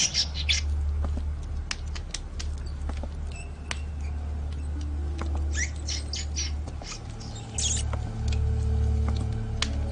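Small animal squeaking: many short, high squeaks and ticks, bunched together about five to eight seconds in, over a low steady hum.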